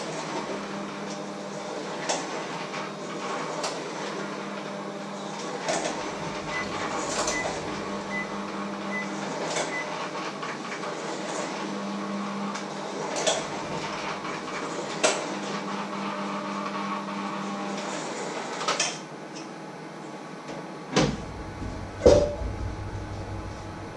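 Kitchen work: scattered knocks and clatter of utensils and dishes on a wooden counter over a steady appliance hum, which stops about three-quarters of the way through, with two louder knocks shortly after.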